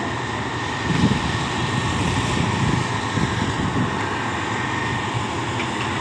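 Diesel engines of a truck-mounted concrete pump and the concrete mixer trucks beside it running steadily.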